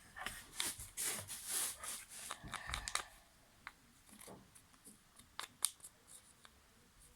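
Rustling, rubbing and small clicks of slime ingredients and their containers being handled. The bursts are dense over the first three seconds, then thin to scattered clicks.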